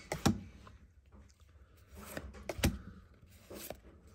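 Pokémon trading cards being handled and slid one at a time off a stack, with a few sharp snaps and light rustling as each card moves.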